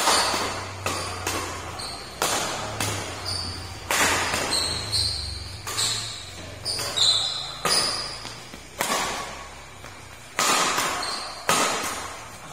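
Badminton rackets striking a shuttlecock in a fast doubles rally: a long run of sharp smacks, some less than a second apart, each echoing in the large hall.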